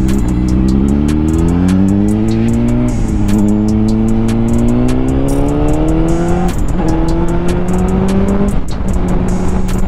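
2005 Honda CBR600RR's 600 cc inline-four engine pulling hard under acceleration, its pitch climbing and then dropping back at upshifts about three and six and a half seconds in, then running steadier near the end, with wind rush over it at highway speed.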